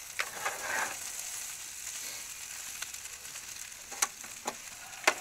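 Potatoes with meat sizzling steadily in a frying pan, stirred with a wooden spatula, with a couple of sharp clicks about four and five seconds in.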